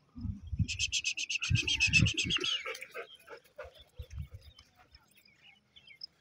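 A rapid run of high chattering notes, about ten a second, starts about a second in and lasts close to two seconds. Low, irregular thumps from the walking German Shepherd come before, during and after it.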